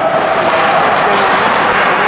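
Spectators in an ice rink yelling and cheering during play, a mix of many voices with one long held shout that fades about halfway through, and a short knock about a second in.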